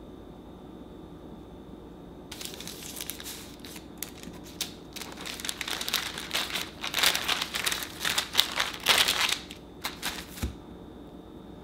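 Parchment paper rustling and crinkling in irregular bursts as hands lift and handle a layered sponge cake strip on it, with a soft bump near the end.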